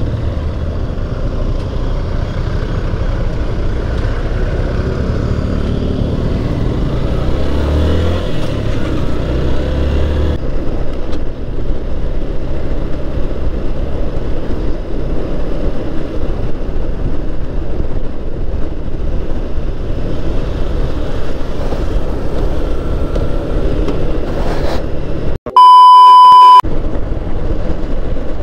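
Motorcycle riding noise on a helmet camera: steady wind and road rush with the engine running underneath. About 25 seconds in the sound drops out and a loud, steady, one-second electronic beep sounds.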